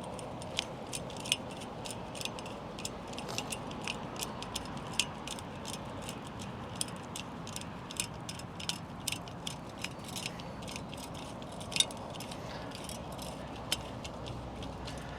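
Worm-drive hose clamp being tightened with a nut driver. The screw threads through the slots in the band with a long run of small, irregular clicks, several a second, over a steady background hiss.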